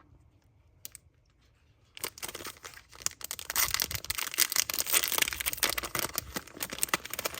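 Plastic merchandise packaging crinkling and rustling as it is handled and opened, starting about two seconds in as a dense run of crackles.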